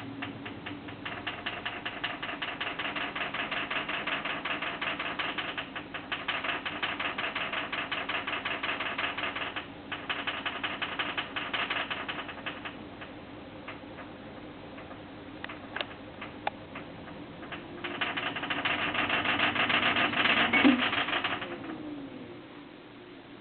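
A broken washing machine running with a fast, dense mechanical rattle over a low hum. The rattle goes on for about twelve seconds, eases off, then returns louder for a few seconds near the end.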